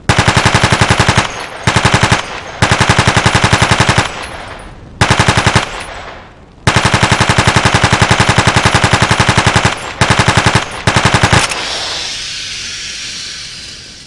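RPK-74 light machine gun (5.45×39 mm) firing fully automatic, about ten shots a second, in seven bursts of different lengths, the longest about three seconds. After the last burst a high hiss fades out over a couple of seconds.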